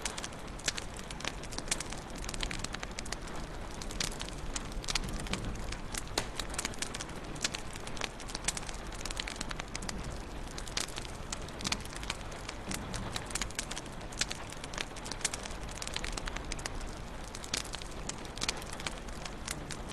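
Wood fire crackling steadily in a fireplace, with frequent sharp pops and snaps over a constant low hiss of burning.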